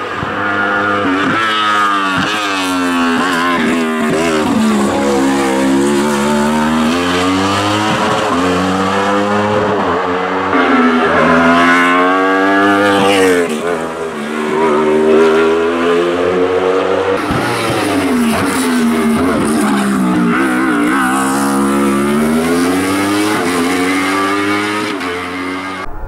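Wolf Thunder GB08 sports prototype racing flat out up a hill-climb course: the engine pitch climbs through the revs, then drops sharply on a gear change or braking for a bend, over and over.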